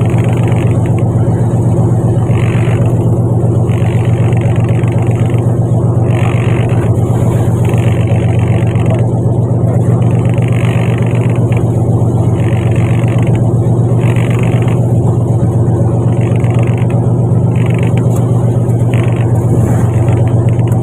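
Fishing boat's engine running with a steady low drone. A higher rushing noise comes and goes every second or two.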